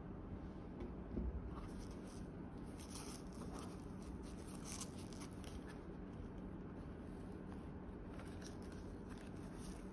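Faint rustling and light scraping as mesh-fabric Subea aqua shoes with rubber soles are handled and turned over on a table, over low steady room noise.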